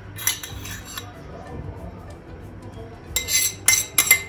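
A metal spoon clinking and scraping against a pot and plate. A few faint clicks in the first second, then a quick run of ringing clinks, several a second, from about three seconds in.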